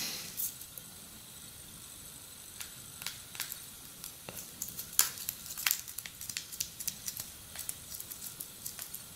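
Hard plastic bumper case being pressed and fitted onto a smartphone's edges: a string of faint plastic clicks and ticks, more frequent from about halfway through.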